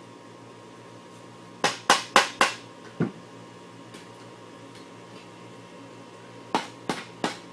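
Sharp knocks on an antique doweled wooden chair as its joints are struck to work them apart: a quick run of four about two seconds in, one more a moment later, and three more near the end.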